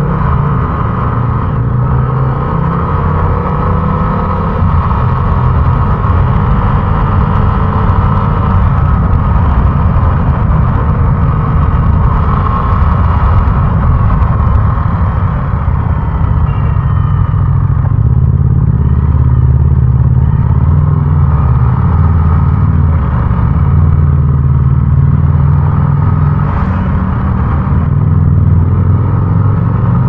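Yamaha Aerox 155 scooter's single-cylinder engine running while riding, its pitch rising and falling with the throttle, with a brief high-pitched sound near the end.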